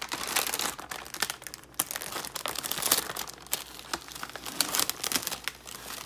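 A family-size Oreo package being torn open: its plastic wrapper and foil inner liner crinkling and tearing in a dense run of crackles.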